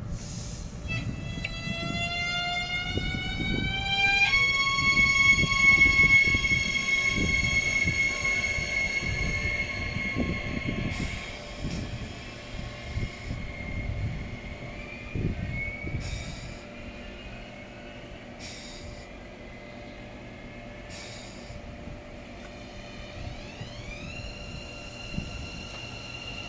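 Siemens electric multiple unit pulling away. The traction drive's whine rises in pitch for a few seconds, jumps to a steady tone and then slowly fades, over the rumble of wheels on rail. Near the end a second whine rises and settles.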